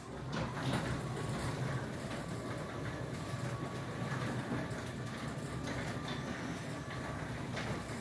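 Automatic garage door opener running as the garage door travels along its tracks: a steady mechanical rumble with rattling that starts suddenly and holds even.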